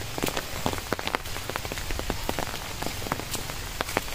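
Steady rain falling, with many separate sharp drop hits close by at irregular intervals.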